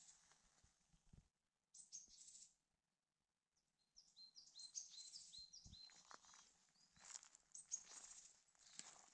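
Faint calls and song of small woodland birds: quick series of short, high, chirping notes. They come mostly after a nearly silent lull of a few seconds, with a few soft footsteps on the forest floor.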